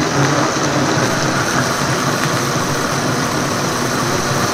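High-powered countertop blender running steadily at speed, puréeing roasted tomatoes, onion, chilies and chicken broth into a smooth liquid.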